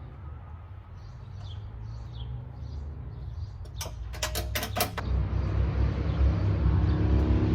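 A few sharp clicks about four seconds in, then a low vehicle engine rumble that grows steadily louder over the second half; faint bird chirps over a low hum in the first few seconds.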